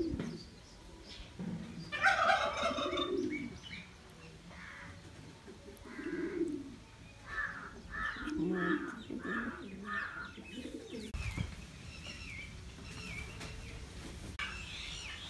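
Birds calling: a louder call about two seconds in, then a run of five quick, evenly spaced calls a little past the middle, with other scattered calls.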